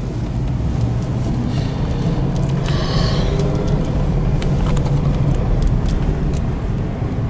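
Steady low road and engine rumble inside a moving Jaguar car's cabin, with a brief higher hiss about three seconds in.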